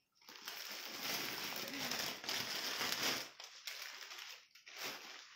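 Rustling and crinkling of a mekhela sador's cloth being handled: a dense stretch for about three seconds, then a few shorter rustles.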